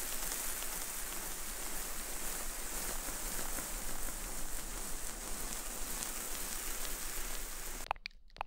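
Dense, crackling rustle of a fluffy green ASMR trigger rubbed against the microphone, sounding like rain. It cuts off suddenly near the end, followed by a couple of clicks.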